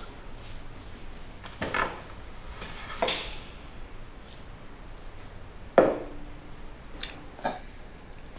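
A drinking glass handled and set down on a wooden table: a few scattered knocks and clinks, the loudest about six seconds in, with a brief ring after it.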